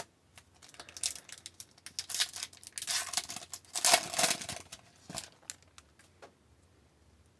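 Foil wrapper of an Upper Deck hockey card pack crinkling and being torn open by hand. The rustling is loudest about four seconds in, then gives way to a few light clicks.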